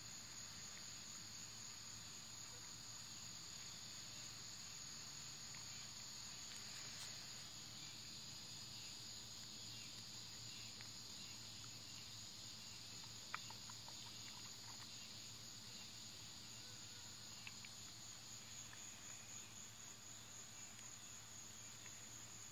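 A faint, steady, high-pitched chorus of crickets, with a few soft clicks about two-thirds of the way through.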